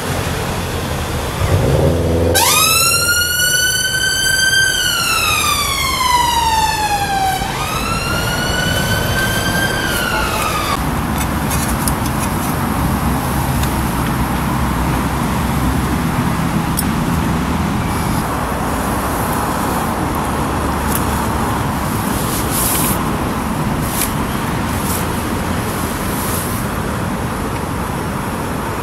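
Ambulance siren wailing in two slow rising-and-falling sweeps that cut off suddenly about ten seconds in, followed by steady road traffic noise.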